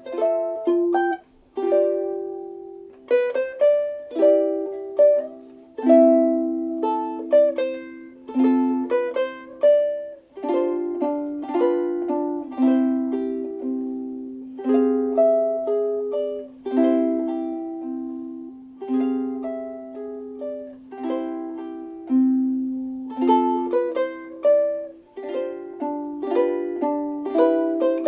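Solid African mahogany Ditson-style soprano ukulele (Cultivate Ukulele D0M) played solo, with plucked chords and melody notes ringing and dying away one after another.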